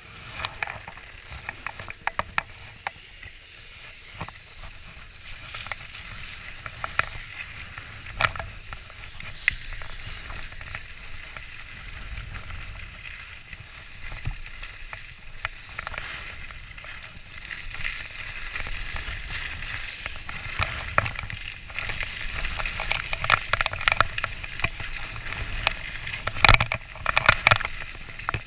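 Skis sliding and scraping over packed snow, with many small clicks and crackles, louder over the last several seconds.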